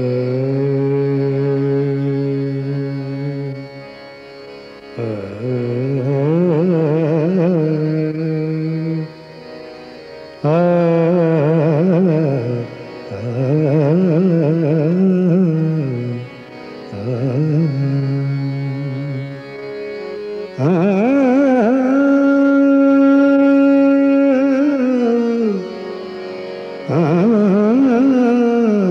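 A male voice singing slow Indian classical phrases: long held notes alternating with quick wavering ornaments, in about six phrases separated by short breaks.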